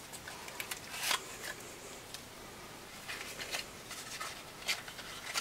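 Faint rustling and a few light, scattered clicks and scrapes of a vacuum tube and its packaging being handled, a little louder about a second in.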